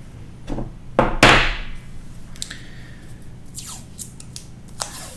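Handling noise as the aluminium halo antenna and its coax are worked on at a wooden desk: a few knocks and rubbing sounds. The loudest is a sharp knock a little over a second in, followed by a short rasping tail.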